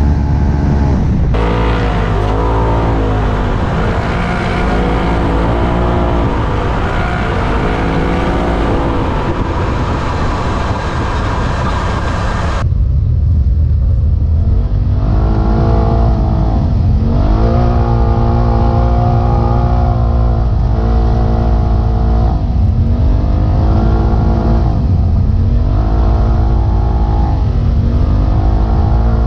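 Polaris RZR turbo side-by-side engine on the trail, revving up and dropping off again and again every second or two as the throttle is worked, over a heavy low rumble. The sound changes abruptly twice, about a second in and near the middle.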